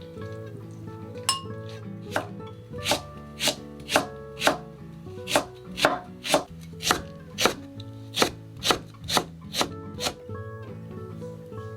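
Kitchen knife chopping on a cutting board: steady, even strokes about two a second, stopping near the end, over soft background music.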